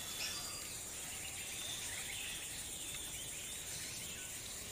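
Rural outdoor ambience: a steady high insect drone with a few short bird chirps.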